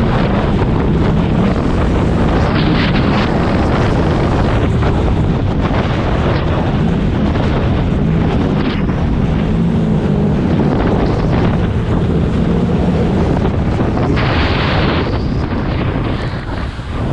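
Sea-Doo GTX jet ski under way, its freshly rebuilt engine running with a wavering low drone under heavy wind noise on the microphone and rushing water. Two brief louder bursts of hissing spray, a few seconds in and again near the end.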